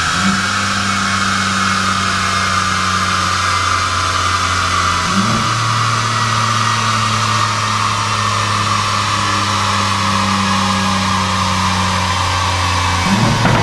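BMW M2 G87 (twin-turbo inline-six, Akrapovic slip-on exhaust) running on a chassis dyno in fifth gear with the road speed falling, a coast-down after a pull. A steady low engine drone jumps up in pitch twice, about five seconds in and near the end, over a loud whine from the tyres and rollers that slowly drops in pitch as the speed falls.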